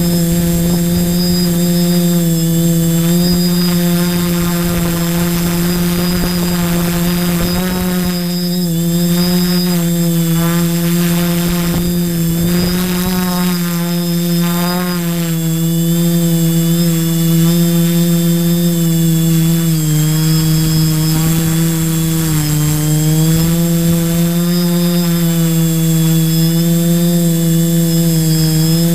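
Tricopter's electric motors and propellers humming steadily, heard close up from the onboard camera, the pitch wavering slightly with throttle and dipping briefly twice past the middle.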